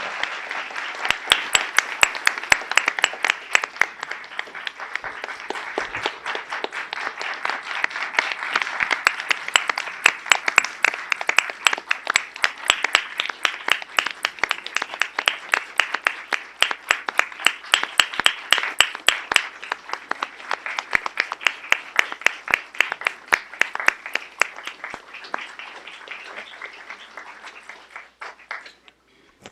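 Audience applauding: dense, steady clapping with many sharp individual claps standing out, which dies away just before the end.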